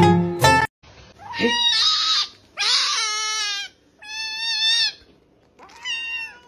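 A kitten meowing: four loud, drawn-out meows of about a second each, with short pauses between. A brief bit of plucked-string music cuts off just before the first meow.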